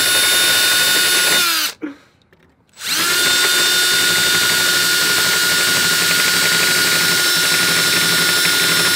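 Milwaukee cordless drill spinning a twist bit through a carbon fiber radiator cooling plate, drilling out a mounting hole: a loud, steady motor whine that stops briefly about two seconds in, then spins up again and runs on steadily.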